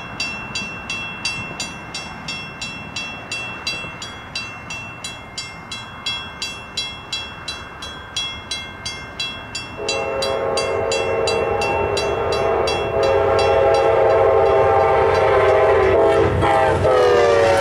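Grade-crossing bells ring steadily at about two and a half strokes a second. About ten seconds in, a passenger locomotive's air horn begins a loud, held chord that drowns the bells. Near the end the horn's pitch bends down as the locomotive reaches the crossing, over a growing rumble of the train.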